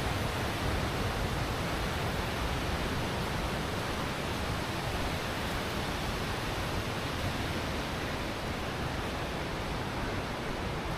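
Steady, even rush of flowing water, with no breaks or separate sounds.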